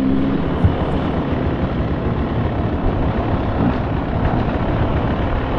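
Beta 300 two-stroke dirt bike engine running steadily on a trail, a rough continuous noise. A single short knock about half a second in.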